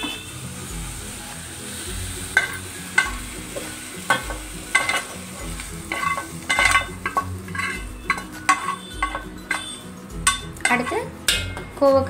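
Metal spoon scraping and knocking against a non-stick frying pan and a steel mixer-grinder jar as fried onion, tomato and ivy gourd are scraped in, with many sharp, ringing clinks from about two seconds in. Faint background music with a steady low beat runs underneath.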